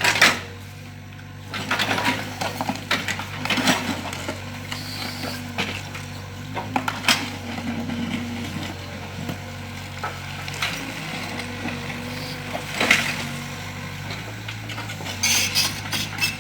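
Mini excavator's engine running steadily while the machine works the ground, with irregular knocks and scrapes throughout.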